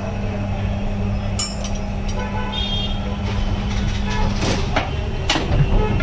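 Tyre changing machine at work mounting a tyre onto an alloy wheel, over a steady mechanical hum. A few sharp metal clanks and knocks come in the last two seconds.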